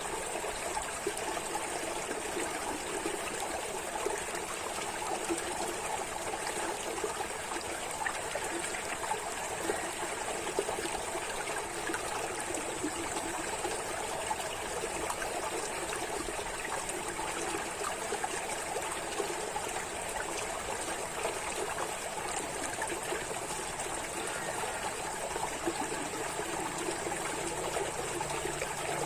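Water running and trickling steadily, like a small stream flowing over stones.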